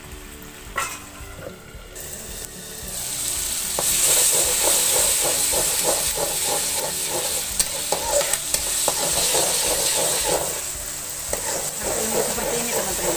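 Tomatoes and garlic paste frying in oil in a wok-style pan while a metal spatula stirs and scrapes through them. A few light scrapes at first, then the sizzling swells about three seconds in and stays loud, with the spatula's strokes repeating through it.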